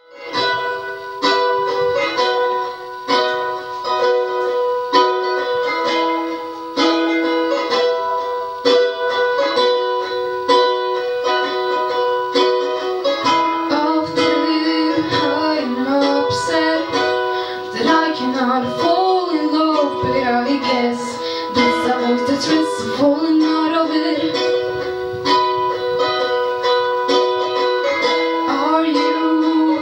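Strummed string instrument playing steady chords, joined by a voice singing about 13 seconds in.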